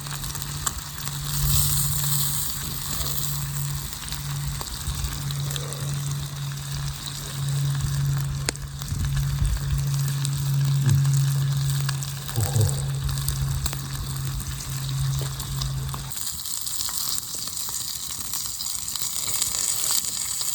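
Steak sizzling in a pan over a campfire, a steady frying hiss with faint crackles. A steady low hum runs underneath and stops about 16 seconds in.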